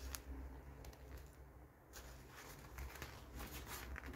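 Faint scattered clicks and scrapes as a gloved hand works a rusted, jammed needle-nose plier whose joint will not open, with more clicks in the second half.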